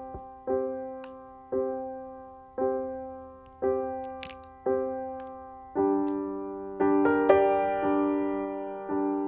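Background music: piano chords struck about once a second, each dying away. The chords grow fuller and higher from about six seconds in.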